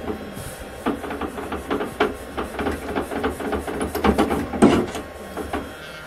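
Irregular metal clicks and rattles of a drill chuck and small drill bit being handled and fitted together, with one louder click about two-thirds of the way through.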